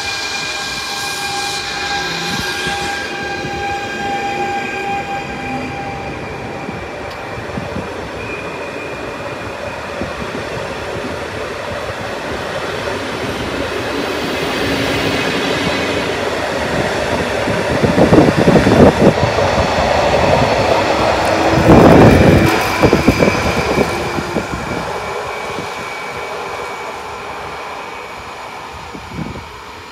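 A PKP Intercity Stadler FLIRT electric multiple unit running past. Its electric drive whines steadily at first, then the rush of wheels on rail swells into two loud peaks about two-thirds of the way in, and the sound fades as the train moves away.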